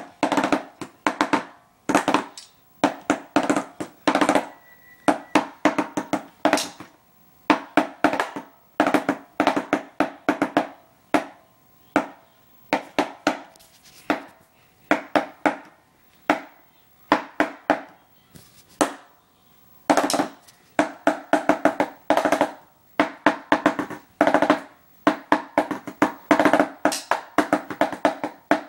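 Drumsticks beating a drum pad in fast flurries of strokes, broken by short pauses, each stroke with a short pitched ring.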